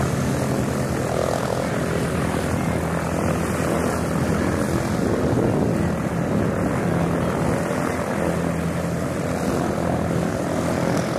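A four-engine turboprop transport plane flying overhead: a steady drone of propellers and engines.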